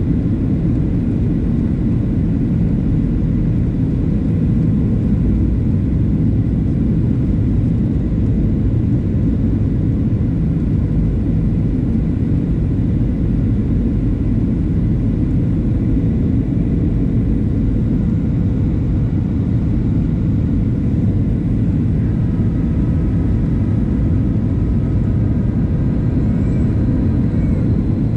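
Steady cabin rumble of a Boeing 737-700 in flight, its CFM56-7B engines and airflow heard from a window seat inside the cabin. A faint, thin whine joins the rumble about two-thirds of the way through.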